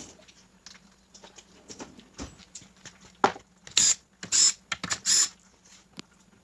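Metal transmission parts being handled: light clicks and small knocks, then a sharp knock about three seconds in and three short, harsh metallic scrapes close together.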